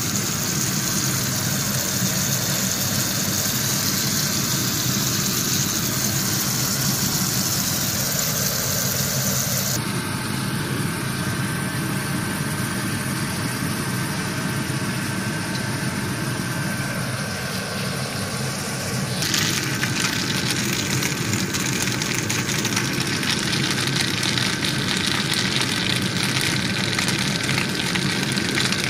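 Shrimp, spinach and garlic simmering and sizzling in a frying pan, over a steady mechanical hum. The sound changes abruptly about ten and nineteen seconds in, where clips are joined.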